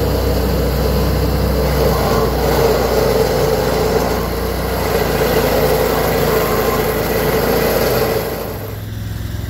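Vermeer SC362 stump grinder running under load, its cutter wheel grinding into a stump. About eight and a half seconds in, the sound drops to a quieter, steadier engine note.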